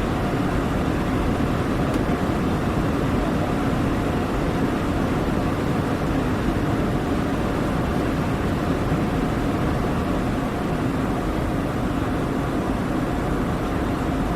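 Douglas DC-8 four-engined jetliner running steadily, an even drone of engine and air noise with a few faint held tones and no change in level.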